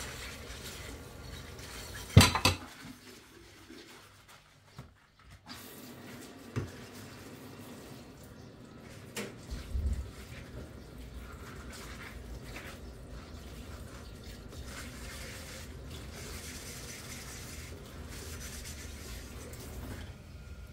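Dishes being washed by hand under a running kitchen tap: water streams into a stainless steel sink while ceramic plates and cups knock against each other and the counter, with one sharp clatter about two seconds in. The water runs steadily through the second half.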